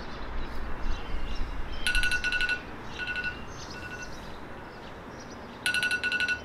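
Smartphone alarm going off: two bursts of rapid high-pitched beeps, with quieter single beeps between them, over a steady background hiss.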